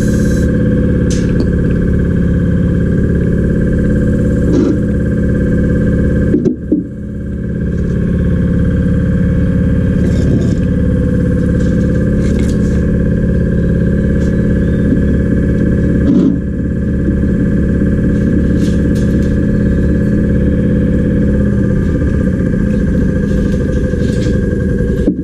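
A motor-driven machine running steadily and loudly with a constant hum. It dips briefly about six and a half seconds in and again about sixteen seconds in.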